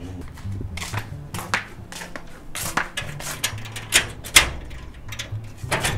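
Knocking on a door: a run of uneven sharp raps, the loudest about four and a half seconds in.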